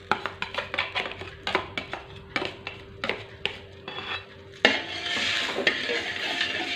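Metal spoon clinking and tapping against a wok, then, from about five seconds in, a steady scraping as the spoon stirs tomato sauce, onions and water in the wok.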